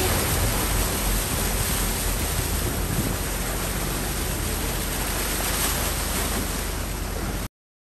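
Steady loud rushing of muddy floodwater churned by a diesel SUV's front wheel as it creeps through a flooded street in the rain, with a low rumble beneath. It cuts off abruptly near the end.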